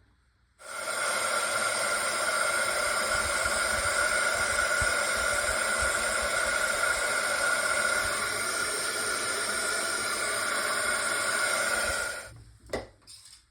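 Embossing heat tool blowing steadily, a fan hiss with a steady whine, switched on about half a second in and off near the end, melting red embossing powder.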